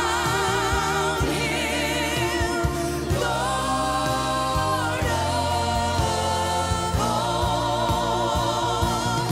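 Live gospel worship music: a woman lead singer holding long notes with a wide vibrato, backed by other singers and a band with drums.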